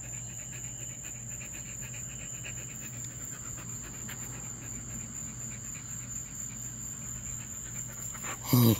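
Doberman panting steadily, with a steady high insect trill behind it. A short, louder vocal sound comes near the end.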